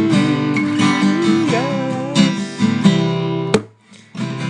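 Song accompaniment of strummed acoustic guitar, chords struck in a steady rhythm; the playing breaks off briefly near the end before resuming.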